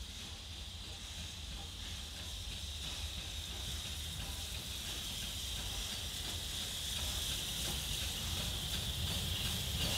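Steady steam hiss from the double-headed steam locomotives, Black Five 45231 and Britannia 70000, drifting slowly in without exhaust beats, growing louder as they draw near, with a low rumble beneath.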